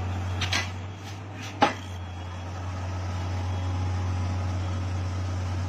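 Komatsu PC200 excavator's diesel engine running with a steady low drone. A sharp knock comes about one and a half seconds in, just after a couple of fainter clatters.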